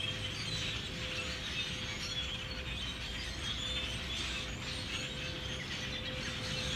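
A large flock of birds in the treetops chirping and calling, many short overlapping chirps, over a low steady rumble and a faint hum.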